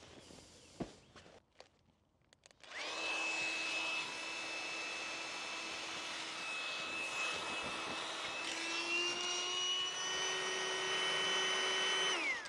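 Xped battery-powered mini pump running to inflate an air pad or pillow: a small electric motor's steady whine that starts about three seconds in, rises a little in pitch past the middle, and winds down near the end.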